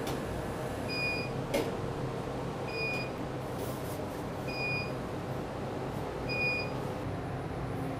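A short high electronic beep repeating four times, about every two seconds, over a steady fan hum, with a faint click about one and a half seconds in.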